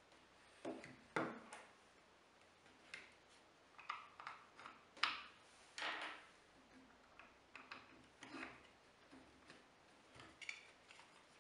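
Plywood push-block parts being handled and set down on a plywood board, giving scattered light wooden knocks and rubs, with small clinks of steel bolts and washers being picked up. The sharpest knock comes about five seconds in.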